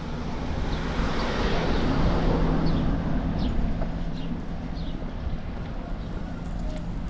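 A minibus passing close by and driving away down the street. Its engine hum and tyre noise swell about two seconds in, then ease off.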